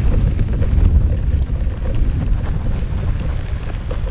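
Wind buffeting the microphone: a steady, loud low rumble with no clear tones.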